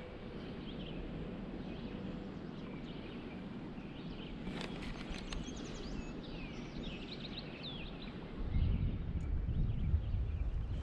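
Outdoor river-bank ambience with small birds chirping and singing in short calls over a steady background hiss. About eight seconds in, a louder low rumble comes in and lasts to the end.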